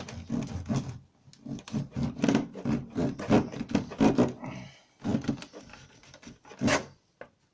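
Kitchen knife sawing in quick rough rubbing strokes for about five seconds, then a single sharp knock near the end.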